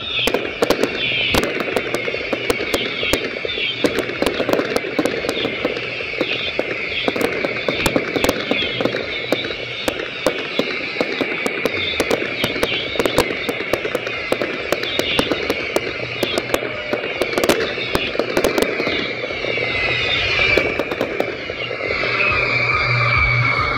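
Professional fireworks display: a dense, continuous stream of sharp cracks and pops from crackling stars and comets over a hissing wash, with falling whistles, one clear whistle near the end.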